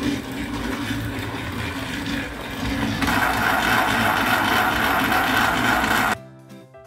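Battery-powered Thomas TrackMaster Diesel toy engine running on plastic track, a steady motor-and-wheel rattle that gets louder about three seconds in as it runs into the tunnel. It cuts off abruptly near the end, giving way to end-screen music.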